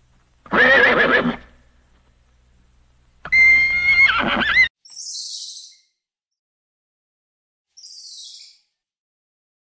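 An animal calling twice, each call about a second long with a wavering pitch; the second ends abruptly. Two short, faint, high-pitched chirps follow.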